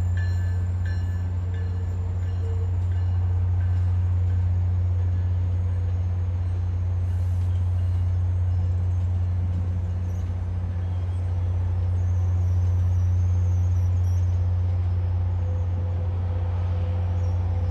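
Diesel locomotive of a commuter train, an MBTA HSP46, moving slowly through a switch yard: a steady, loud low engine drone that holds even throughout.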